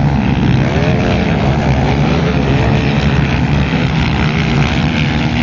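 Motocross bike engines revving, their pitch rising and falling over and over as the throttle is worked, over a steady low rumble.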